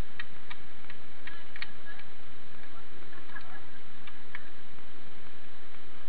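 A handful of short, sharp light clicks at irregular intervals, bunched in the first two seconds and again a little after four seconds in, over a steady hiss.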